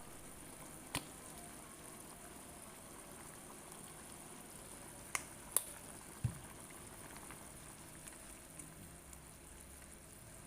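Food bubbling steadily on the stove as it cooks, with a few sharp clicks of a utensil and one low knock a little after the middle.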